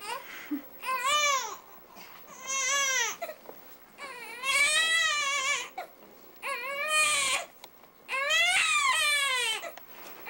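Newborn baby crying: five separate high-pitched wails about one to one and a half seconds long, each rising and then falling in pitch, with short quiet breaths between them.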